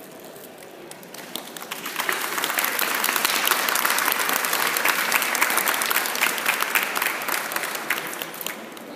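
Audience applauding: the clapping starts about a second in, builds to its loudest through the middle, and dies away near the end.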